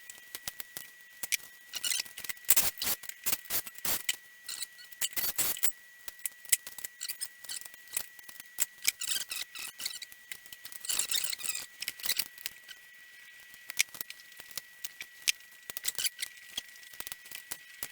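Irregular clicks, taps and light clatter of small plastic and metal heater parts being handled and moved on a work surface, with denser bursts of clicking a few seconds in and again near the middle, over a faint steady high tone.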